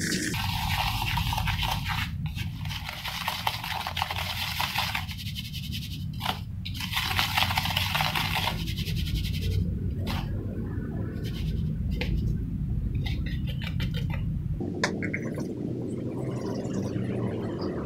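A wooden stick stirring and scraping a gritty, wet mix of cement and crushed brick against a plastic scoop, in long scraping strokes with short breaks between them. A steady low hum runs underneath and stops about three-quarters of the way through.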